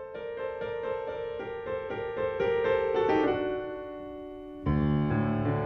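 Piano music: a run of quick notes climbing in pitch, then a held chord that fades, followed near the end by a louder, fuller chord with deep bass notes.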